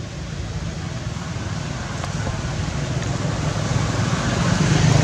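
Low engine rumble of road traffic, growing steadily louder as a vehicle approaches.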